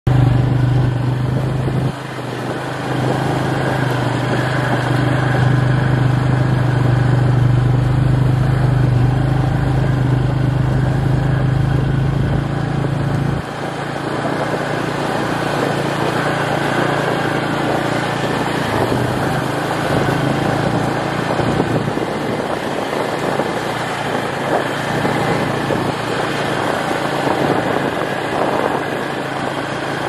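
A small vehicle engine running steadily as the vehicle drives slowly over a gravel road, with tyre and gravel noise. About 13 seconds in the engine's low hum drops away abruptly while the rolling noise carries on.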